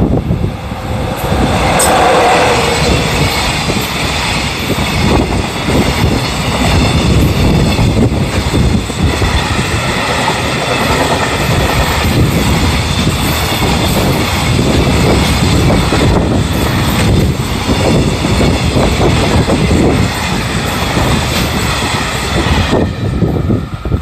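EF66 electric locomotive hauling a long container freight train past, the wagons rumbling and clattering over the rails. The noise drops off sharply near the end as the last wagons go by.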